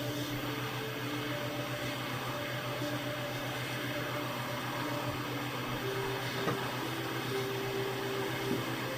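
Hot-air rework station blowing steadily with a low, pulsing hum while it heats a phone's charging port so the part seats in place. Two faint clicks come in the second half.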